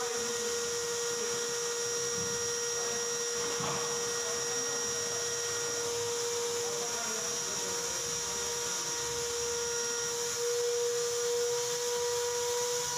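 A steady machine whine held at one fixed pitch, with a fainter high whine above it, like a small electric motor running continuously.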